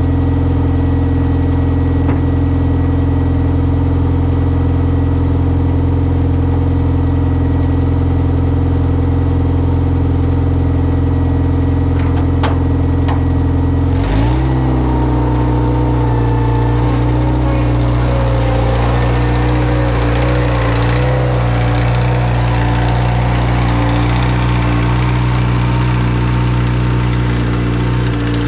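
Bobcat 642 skid-steer loader engine idling steadily, then throttled up about halfway through and running faster as the loader drives off. A couple of sharp clicks come just before the throttle-up.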